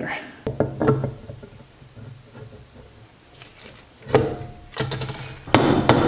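Mallet knocking the crankcase cover of a Honda GC160 engine down onto the block to seat it: a softer knock about four seconds in, then several sharp knocks near the end.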